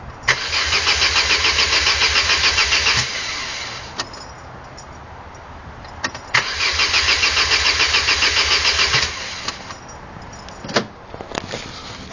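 Vauxhall/Opel X16XE 1.6-litre 16-valve four-cylinder petrol engine being cranked by its starter motor twice, each time for about three seconds with a steady rhythmic chug, and not firing: the engine won't start. A few sharp clicks fall between and after the attempts.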